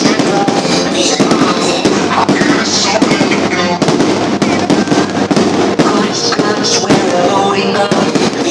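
Fireworks going off in rapid, irregular bangs, many per second, with music playing underneath.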